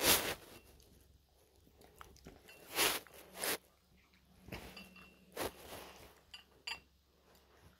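A domestic cat chewing its food right at the microphone: about six separate bites, irregularly spaced, the loudest at the start.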